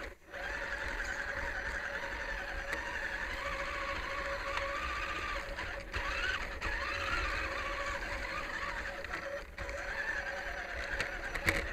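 Radio-controlled rock crawler's small electric motor and geared drivetrain whining, heard from a camera mounted on the truck. The whine rises and falls in pitch with the throttle and cuts out briefly a few times.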